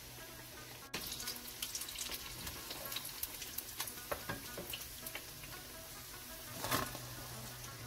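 A slotted spoon stirring fried pakoras in a pot of thick simmering kadhi: soft wet crackling and light clicks over a steady low hum, with one louder brief swish about two-thirds through.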